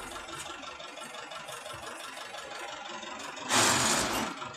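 City traffic heard from inside a vehicle, with engines idling and running in a steady din. About three and a half seconds in, a loud hiss lasts under a second.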